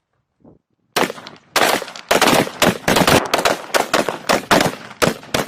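Rifles firing on a range: a single shot about a second in, then a fast, uneven string of shots, roughly four to five a second, with a short echo after each.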